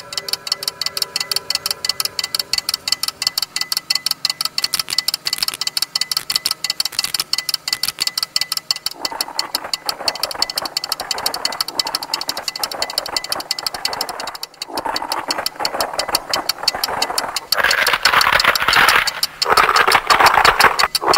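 Fast, regular mechanical ticking, a clockwork-style sound effect. A harsh grinding noise joins about nine seconds in and grows louder near the end.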